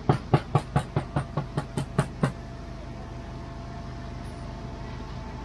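A quick run of about ten sharp knocks, roughly four or five a second, that stops about two seconds in, over a steady machine hum.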